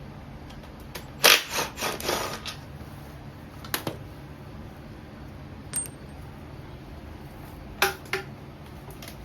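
Metal tools and steel bolts clinking and clanking while transmission bolts are worked loose: a quick cluster of sharp clinks about a second in, then single clinks spaced a few seconds apart and two more near the end.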